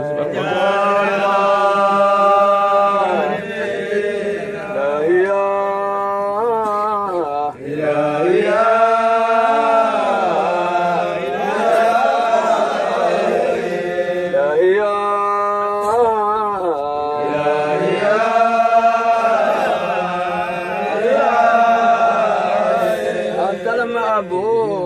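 Islamic devotional chanting of a Sufi dhikr/qasida: a voice sings long, melismatic lines with wavering ornaments over a steady low drone.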